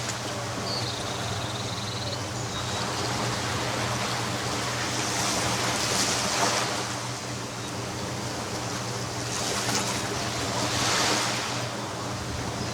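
Ocean waves breaking on a beach: a steady wash of surf with two bigger waves swelling up about five and ten seconds in. A short, thin high whistle sounds about a second in.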